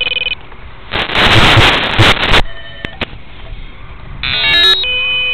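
Brushless quadcopter motors (iForce 2207) beeping their ESC power-up tones while disarmed: a short beep at the start, a quick stepping run of tones about four seconds in, then a steady beep near the end. A rush of noise, like wind or handling on the microphone, fills the first half.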